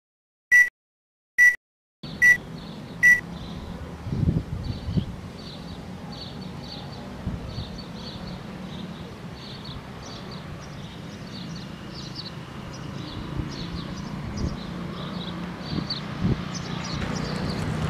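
Film-leader countdown beeps, four short high tones about a second apart. Then outdoor ambience: birds chirping over and over, a low steady hum, and a few dull bumps.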